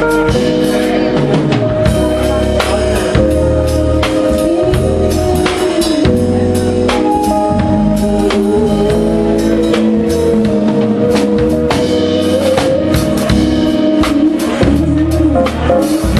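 A live band playing a steady groove on drum kit and bass guitar, with sustained keyboard chords and a melody line on top; regular drum hits keep the beat throughout.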